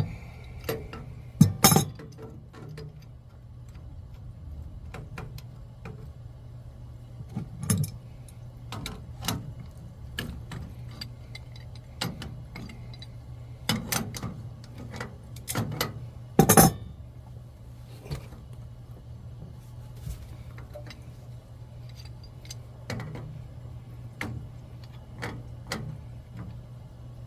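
Hand tools clinking and knocking on metal water heater fittings: irregular sharp metallic taps and clicks, a few louder knocks among them, over a steady low hum.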